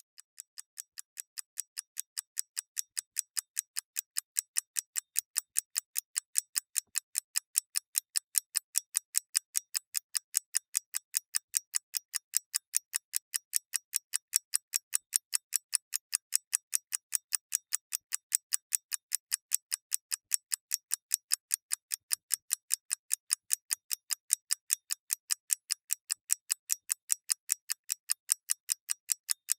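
A mechanical clock ticking in a rapid, perfectly even rhythm of crisp, bright ticks, several a second. It fades in over the first few seconds, then holds at a steady level.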